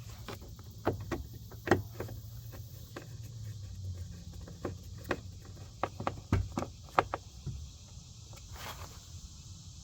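Irregular sharp knocks and clicks of a plastic car door panel being pressed and fitted onto the door, over a steady low hum.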